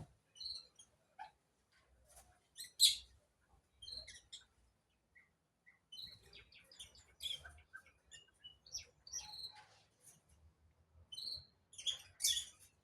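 Birds chirping in short, scattered high calls, with louder bursts about three seconds in and again near the end.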